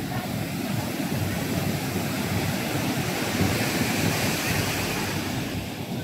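Rough storm surf breaking, and foaming whitewater rushing up the sand, a steady rushing wash with no breaks.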